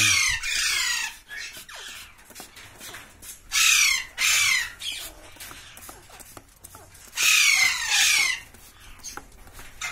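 Alexandrine parakeets giving loud, harsh screeches, each sweeping down in pitch, in three bouts: at the start, about halfway through, and a longer one past the middle. Between the calls there are faint short spritzes and clicks from a hand spray bottle.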